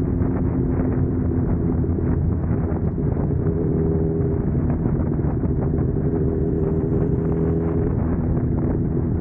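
Suzuki Katana motorcycle engine running at a steady cruising pitch while riding, with wind rushing over the microphone.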